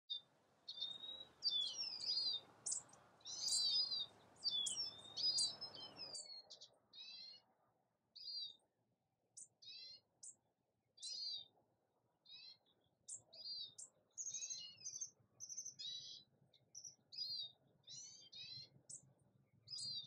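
Wild songbirds singing: a steady run of short chirps and warbling phrases, one after another. A low background rumble under the song drops away about six seconds in.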